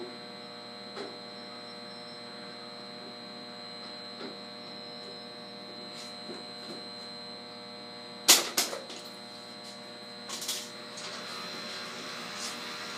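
Steady electrical hum of equipment in an electrical room, with a thin high whine above it. A few light ticks of tools sound along the way, a sharp metallic clank comes a little past eight seconds in, and a smaller knock follows about two seconds later.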